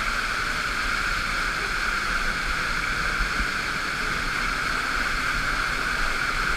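Waterfall rushing, a steady even hiss of falling water without a break.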